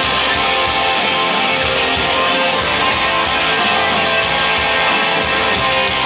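Rock band playing live at full volume, strummed electric guitars over bass and drums.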